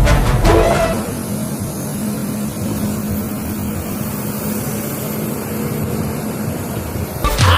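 An engine running steadily, with a faint low hum and a thin high whine. Background music fades out in the first second, and music cuts back in just before the end.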